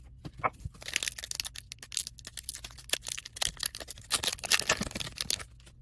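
Crisp, irregular crinkling and rustling of a trading-card pack's wrapper and cards being handled and opened, which stops shortly before the end.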